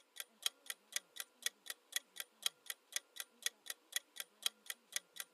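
Clock-style tick-tock sound effect of a quiz countdown timer: steady clicks, about four a second, alternating louder and softer.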